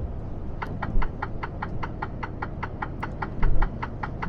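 Rapid electronic ticking from a signal in the truck's cab, about six ticks a second, starting about half a second in. Under it runs a steady low road and engine rumble, with a low thump about three and a half seconds in.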